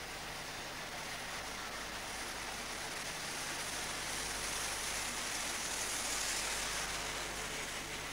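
British Rail InterCity 125 High Speed Train (Class 43 power car and its coaches) passing along the platform at speed. The rushing noise grows as the power car draws level, peaks about six seconds in as the coaches go by, then eases slightly.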